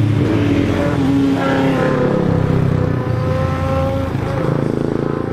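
A motor vehicle's engine running, its pitch climbing over the first couple of seconds and then holding fairly steady, as when a vehicle accelerates on a mountain road.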